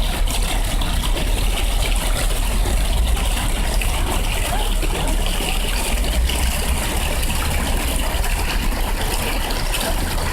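Steady splashing of running water from a fountain, with a constant low rumble under it.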